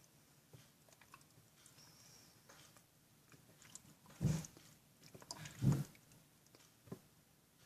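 Borax-and-glue slime being kneaded and squeezed by hand, a sticky wet squishing with small clicks, and two louder squelches at about four and five and a half seconds in.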